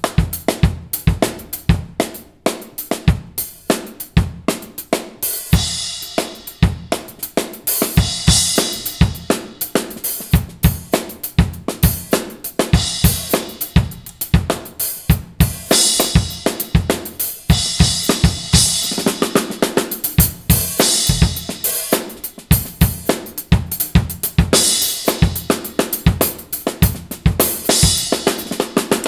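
Drum kit played steadily, with several strokes a second, and short cymbal accents every couple of seconds from a 12-inch Sabian HHX Evolution splash, an extra-thin B20 cymbal.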